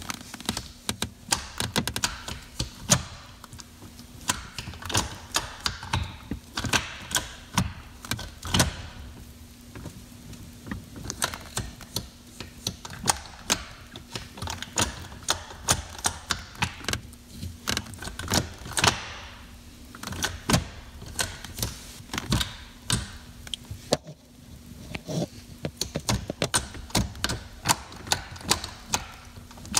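Shift lever of a six-speed manual gearbox worked through the gears by hand, its shortened shifter linkage and selector rod clicking and clunking into the gates many times in an irregular rhythm.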